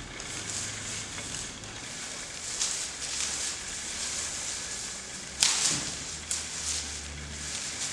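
A bundle of leafy branches swung hard through the air, making several sharp swishing, rustling whooshes, the loudest about five and a half seconds in.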